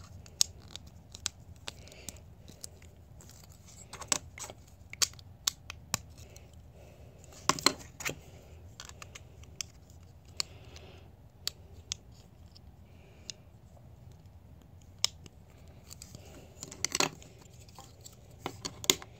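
Plastic Mega Bloks building bricks clicking and knocking as they are handled, fitted together and set down on a tabletop: scattered sharp clicks, with small clusters of them about four, seven and a half, and seventeen seconds in.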